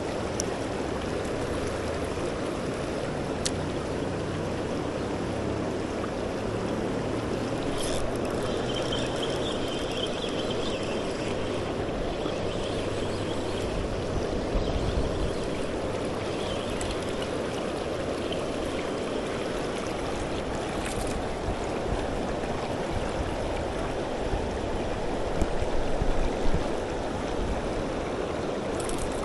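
A creek running high: steady rushing water, with a few brief, light clicks scattered through.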